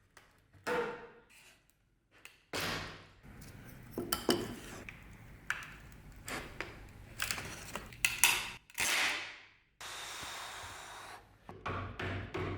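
Hand work on old wooden and forged-iron parts: a run of sharp knocks and clinks of metal and wood against hard surfaces, some ringing briefly, with a steady rush of scraping or brushing noise lasting about a second and a half near the end.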